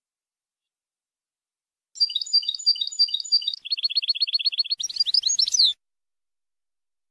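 European goldfinch singing a song phrase in the Levantine (Shami) style. About two seconds in come repeated twittering notes at about five a second, then a fast, even trill, then a few rising and falling sweeps. The phrase cuts off abruptly after under four seconds.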